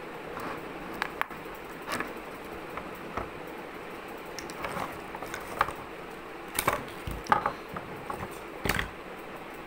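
Small plastic paint pots handled on a wooden table: scattered clicks and knocks as they are set down and their snap caps flipped open, busiest in the second half.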